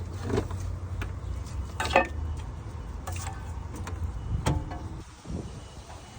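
Dodge Ram 1500 engine running with a steady low hum, broken by irregular sharp clicks and rattles every second or so: the noise taken for the timing chain.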